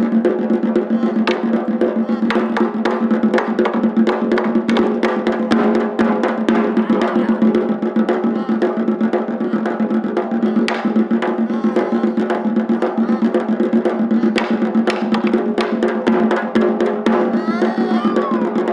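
Gojinjo daiko taiko drumming: a rapid, unbroken stream of stick strikes on Japanese drums over a steady deep drum tone.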